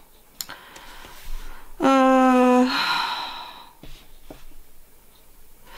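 A woman's voice: a short held wordless sound on one pitch about two seconds in, then a breathy exhale like a sigh, with a few faint clicks around it.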